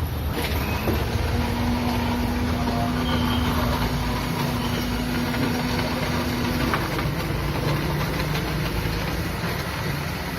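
Steady low rumble of a running engine, with a level hum that starts about a second in and stops a little past halfway.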